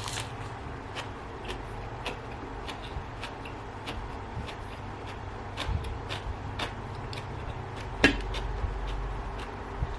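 A person eating: soft crunches and clicks of chewing lettuce and noodle salad, scattered through, with one sharper click about eight seconds in, over a steady low background hum.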